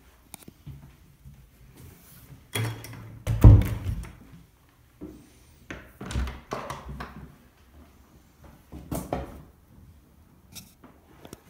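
An interior door being handled, opened and pushed shut, with several thuds and knocks; the loudest is a deep thump about three and a half seconds in.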